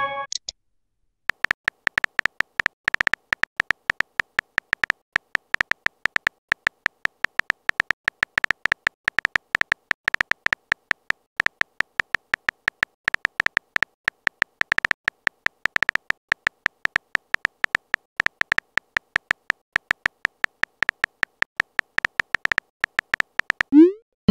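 Phone keyboard typing sound effect: a rapid run of short, slightly beeping clicks, several a second, as a message is typed out. A short rising send tone comes near the end.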